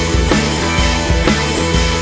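Background music: an upbeat track with a steady drum beat and sustained instrument notes.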